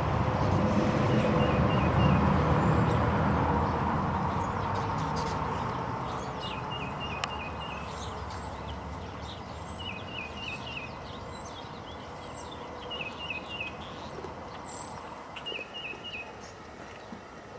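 A small songbird repeats a short phrase of three or four quick chirps every few seconds, with thinner high-pitched chirps in between. Under it, a low rumble fades away over the first several seconds.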